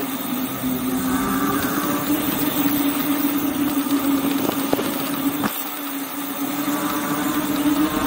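Rear hub motor of a 2000 W, 52 V e-bike whining at a steady pitch under way, over a rush of tyre and wind noise. A single sharp click comes about five and a half seconds in, after which the low rumble drops away.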